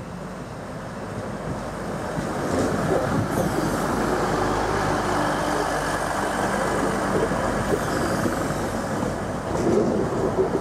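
A train moving along a station platform, growing louder over the first three seconds and then holding steady.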